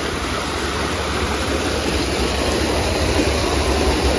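Steady rushing noise of water pouring down an artificial rock waterfall, with a low rumble underneath.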